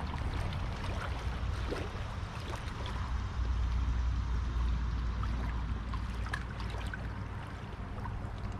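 Wind buffeting the microphone in a low rumble that is strongest in the middle, over small waves lapping and trickling at the shoreline.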